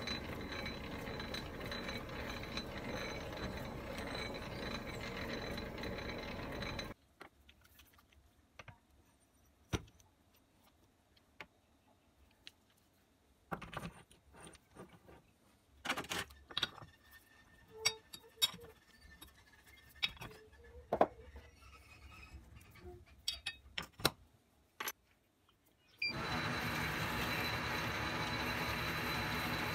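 Metal lathe running steadily with a faint high whine, then shut off about seven seconds in. Scattered metallic clicks and clinks follow as a quick-change tool post and its tool holder are handled and set. The lathe starts running again near the end.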